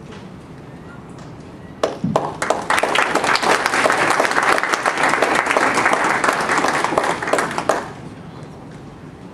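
Audience applauding: a few scattered claps about two seconds in, building quickly into full applause that lasts about five seconds and stops near the end.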